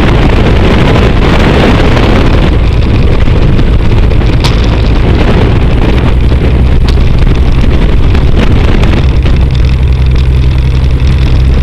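The Pitts S-2B biplane's six-cylinder Lycoming aero engine and propeller running steadily, heard over wind buffeting the tail-mounted microphone. Near the end the engine note rises as power comes up.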